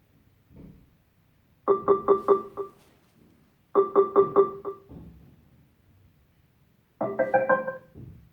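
Harman Kardon Onyx Studio 3 Bluetooth speaker sounding three short piano-like chimes. The first two are quick runs of about five repeated notes, and a different short run of notes comes near the end.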